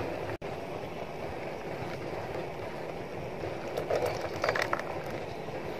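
Blended grape juice pouring in a thin stream onto a mesh strainer: a steady splashing trickle.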